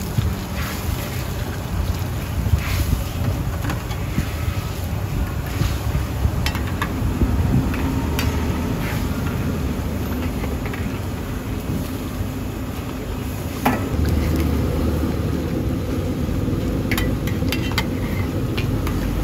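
Steady low rumble of a gas wok burner under a wok of boiling broth, with steel ladles clinking and scraping against the wok every few seconds as sliced pork is stirred.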